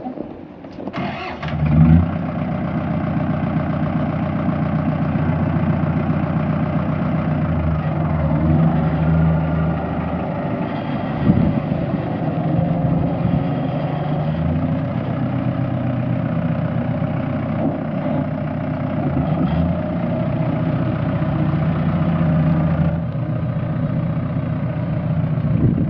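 Generator engine starting about a second in, then running steadily.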